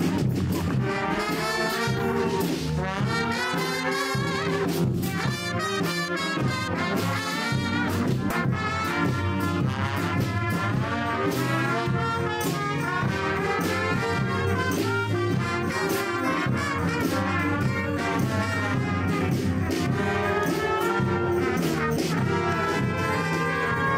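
Brass band music, with trombones and trumpets playing a continuous tune at a steady level.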